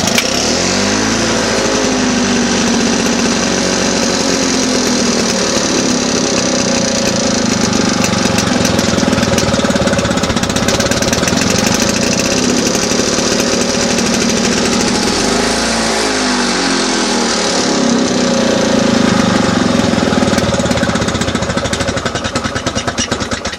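Victa lawn mower engine running on its freshly rebuilt carburettor, picking up speed in the first couple of seconds, then sagging and recovering about two-thirds of the way through. The engine only runs and starts reliably at full throttle.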